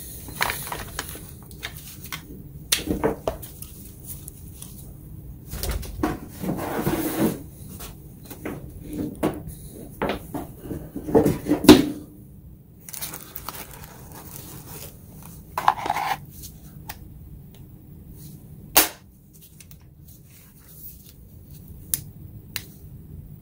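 Handling noise from a plastic cordless-tool battery and its charger: scattered clicks, knocks and rustling as the battery is taken off the charger and set down, with a sharp knock just before halfway and another a little past three quarters of the way through.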